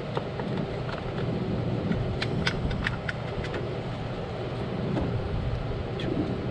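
Light plastic clicks and taps, most of them about two to three seconds in, as a battery is fitted and snapped into the battery compartment of a Tollamark MD-830 metal detector's plastic control box. A steady low rumble runs underneath.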